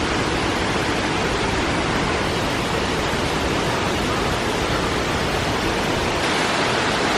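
Steady rush of falling water from a waterfall, with a slight change in its tone about six seconds in.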